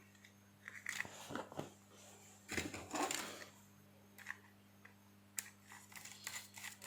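Faint handling noises: scattered clicks, taps and rustles, a little busier about three seconds in, over a low steady electrical hum.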